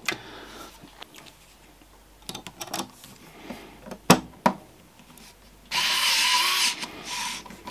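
Pen-style electric screwdriver running for about a second, then briefly again, driving in a screw. A few light clicks of the bit meeting the screw come before it.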